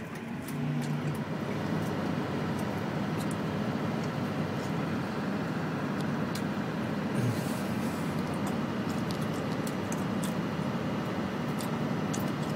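Steady road and engine noise heard inside a moving vehicle's cabin, with scattered faint clicks over it.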